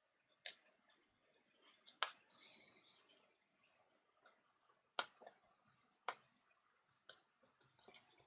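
Scattered small, sharp clicks and taps, about six in all, as a flex cable is worked into its connector on a tablet's board, with a brief soft rustle a little over two seconds in.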